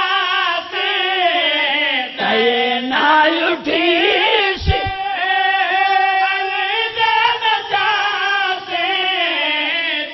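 A man's voice chanting a verse over a PA microphone in long, drawn-out sung notes that waver and slide between pitches.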